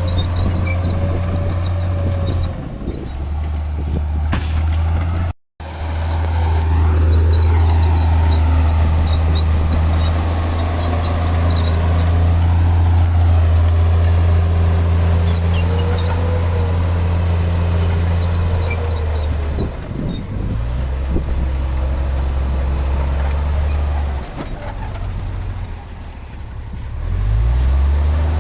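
Heavy diesel engine of earthmoving machinery running steadily under load, with a low drone whose note shifts a few times and a wavering whine above it. The sound cuts out completely for an instant about five seconds in.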